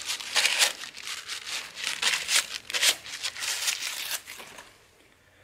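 Hands crinkling and rustling something, in a run of short noisy bursts that die away about four and a half seconds in.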